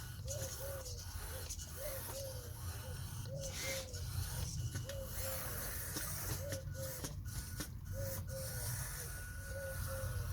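Small electric drive motors of radio-controlled construction models running with a steady low hum, with short squeaks repeating irregularly about once or twice a second.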